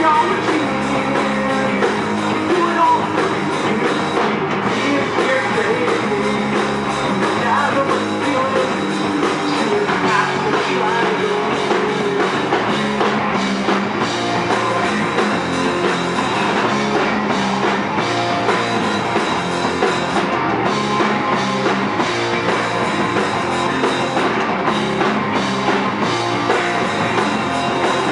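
Live rock band playing a song with guitar and drum kit, steady and loud throughout.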